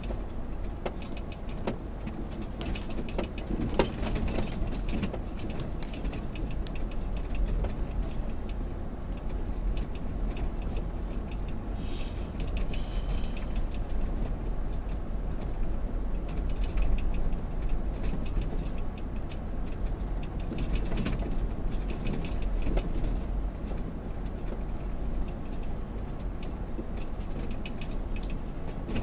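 Lexus GX460 driving over rough beach sand, heard from inside the cabin: a steady low rumble of engine and tyres, with frequent light rattles and clicks as the truck jolts over the uneven ground.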